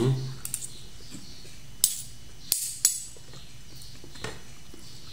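Cutlery clinking on plates and bowls during a meal: a few short sharp clinks, the three loudest about two to three seconds in, over a quiet room.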